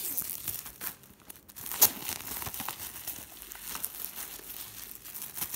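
Clear plastic shrink wrap being torn and peeled off a cardboard box set, crinkling and crackling, with one sharp, louder crack about two seconds in.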